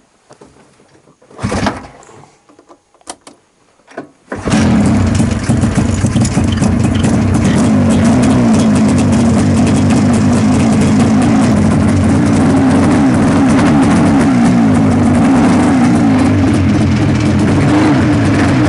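Buran 640 snowmobile's two-cylinder two-stroke engine, started cold on the choke. A few short knocks and one brief rasp are heard first. About four seconds in the engine catches and runs steadily and loudly.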